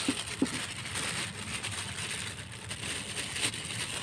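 Cats and kittens crunching dry kibble: a dense, steady crackle of small crunches.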